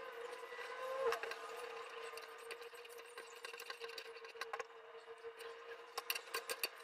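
Wooden spoon stirring thick flour-and-water paste in a metal pot, with irregular clicks and knocks of the spoon against the pot, over a steady hum. A brief gliding squeak about a second in.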